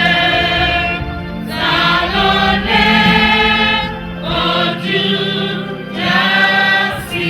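Church choir singing a gospel anthem, several voices together, in long held phrases with brief breaks between them.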